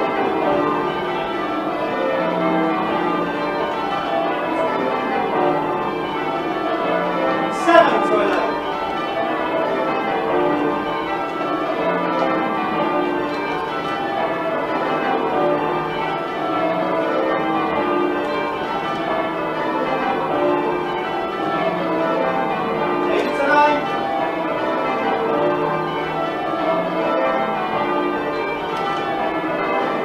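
Christchurch Priory's church bells being change-rung, a continuous even succession of bell strikes at many pitches, heard from the ringing chamber beneath them. A sharper knock cuts in about eight seconds in and again near twenty-three seconds.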